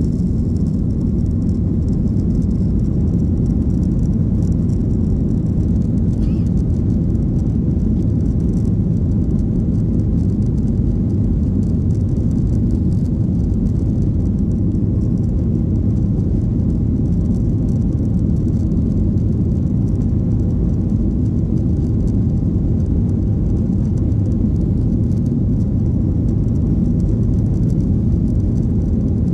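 Inside the cabin of a Boeing 737-800 on takeoff: its CFM56-7B turbofans at takeoff thrust, with airflow, give a loud, steady low rumble through the end of the takeoff roll and into the climb.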